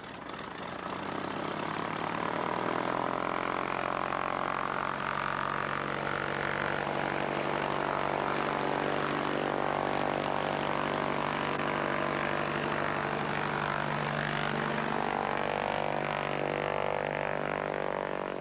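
Light propeller airplane's piston engine running with a steady buzzing drone. It builds up over the first couple of seconds, holds, and eases off near the end.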